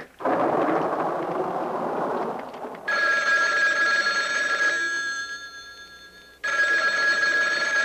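Push-button desk telephone ringing twice, each ring a couple of seconds of steady bell tone that dies away. Before the first ring, a broad rush of noise fades out over the first few seconds.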